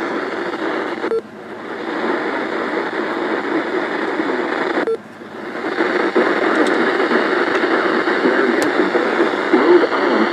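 Weather radio receiver static: a steady, noisy hiss with a faint thin tone in it. It cuts out briefly twice, about a second in and again near the five-second mark.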